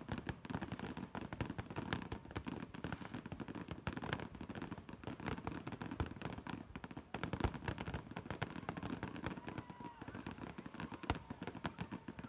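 Fireworks crackling: a dense, continuous scatter of faint pops, broken by a few louder bangs every couple of seconds.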